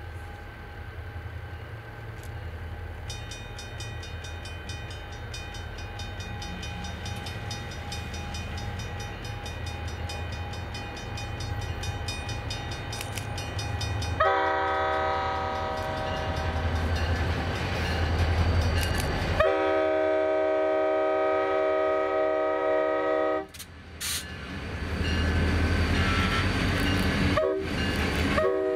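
Diesel locomotive of a freight train rumbling as it approaches and grows louder. About halfway in it sounds its multi-note air horn in a long blast lasting several seconds. After a brief break the horn sounds again near the end.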